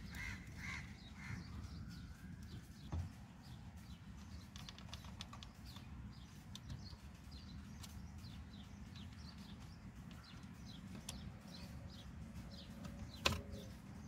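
Birds chirping and calling faintly in the background, with two sharp clicks, one about three seconds in and a louder one near the end, from hands working the plastic wiring connector of a car's power-window switch.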